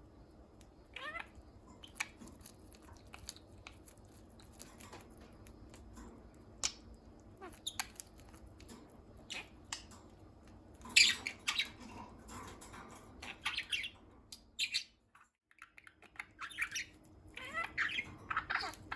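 Pet budgerigars chirping and squawking in short bursts among scattered small clicks and taps. The calls are busiest and loudest from about eleven seconds in, and again near the end.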